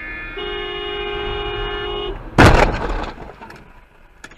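A car horn beeps and is then held for about two seconds. It is cut off by a loud crash of a car collision, with a short crunching tail.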